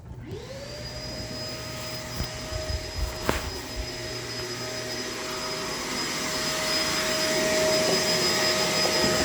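Shark LA702 vacuum cleaner switched on, its motor spinning up within a fraction of a second to a steady whine, then running steadily and growing gradually louder. There is a single sharp click about three seconds in.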